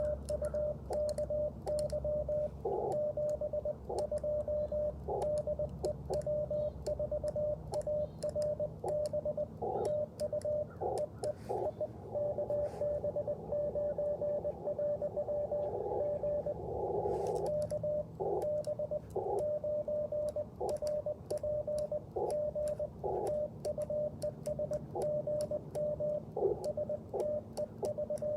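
Morse code from an Icom IC-705 transceiver: a single steady beep keyed on and off in short and long elements (dits and dahs) as a CW contact goes on, with faint clicks among the tones.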